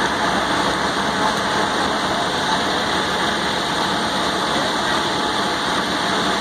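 A train's diesel engine idling steadily, with the dense, even noise of a busy platform around it.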